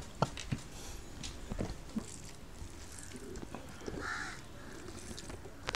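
Faint sounds of eating fried crab by hand: small cracks and clicks of crab shell being bitten, and fingers working rice, as scattered ticks. About four seconds in there is a brief harsh call.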